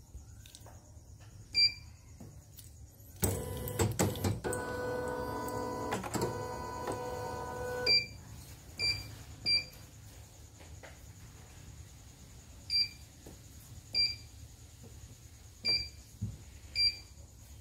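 Short, high key-press beeps from a portable computerized embroidery machine's touchscreen, about eight of them, some coming in quick succession. Between about 3 and 8 seconds in, a louder electric whirr of several steady tones from the machine, starting with a clatter.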